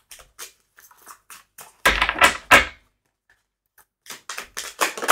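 A deck of oracle cards being shuffled by hand: a run of short papery clicks, with a louder flurry about two seconds in and another near the end.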